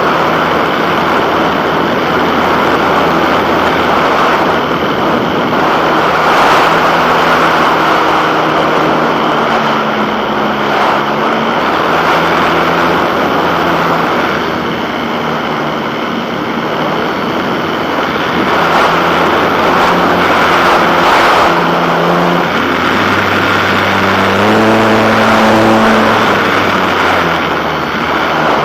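A vehicle's engine running under way, its pitch rising and falling with speed, under a steady rush of wind noise on an onboard camera.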